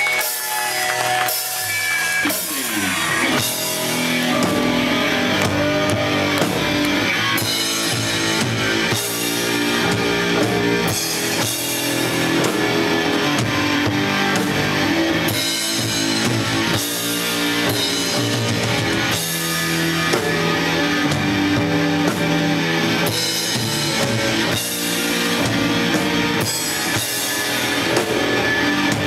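A rock band playing live: electric guitar, electric bass and a drum kit, loud and steady.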